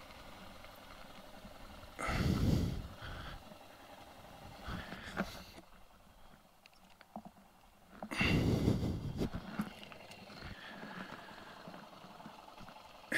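Yamaha XT600E motorcycle ridden along a dirt track, its running faint under two loud rushes of noise about two and eight seconds in.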